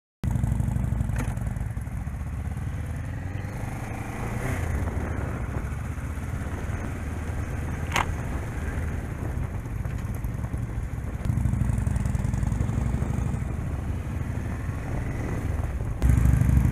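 Kawasaki sport motorcycle's engine running while riding, heard from the rider's helmet with wind noise. It gets louder about eleven seconds in and again near the end. There is one sharp click about eight seconds in.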